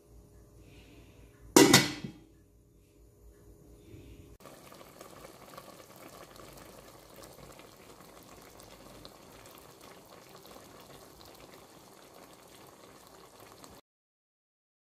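Fish stew simmering in an aluminium pot on a gas stove: a steady bubbling hiss that starts about four seconds in and cuts off near the end. Earlier, one sharp, loud knock about one and a half seconds in.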